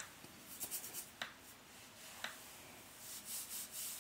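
Fingers rubbing castor oil into short curly hair and scalp: a faint, scratchy rustle of quick strokes, busiest near the end, with two faint ticks in the middle.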